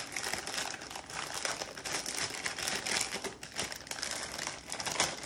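Plastic wrapper of an instant ramen packet crinkling as it is handled and opened by hand, a dense run of irregular crackles.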